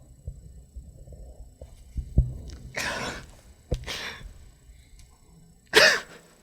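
A man crying: three sharp sobbing, sniffling breaths, the loudest near the end, with a couple of low thumps between them.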